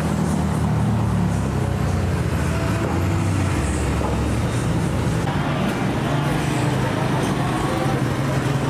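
Street traffic noise: motorbike and car engines running as they pass, a steady low hum with no break.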